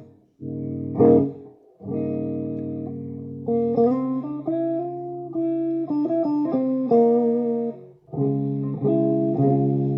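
Electric guitar played through a homemade guitar amplifier on its clean channel. It opens with let-ring chords, moves to a run of single held notes about three and a half seconds in, and strikes another chord near the end.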